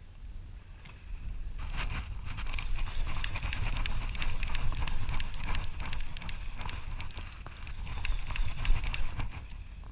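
Rapid clicking and crackling as a conventional fishing reel and rod are handled and line is worked in by hand, from about a second in until near the end, over a steady low rumble of wind and boat.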